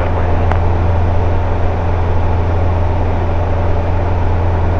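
Steady drone of a light single-engine propeller plane's engine and propeller in flight, heard from inside its cockpit. One brief click about half a second in.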